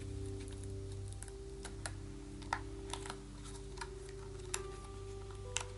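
Clear plastic packaging of a makeup brush being handled and pried at, giving scattered light clicks and taps, over soft background music with steady held notes.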